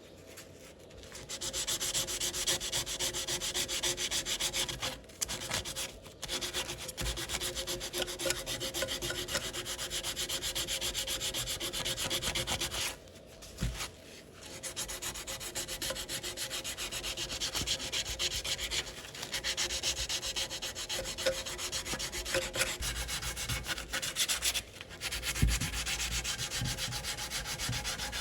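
Wood being sanded: a steady rasping hiss that starts about a second in and pauses briefly a few times, the longest about thirteen seconds in.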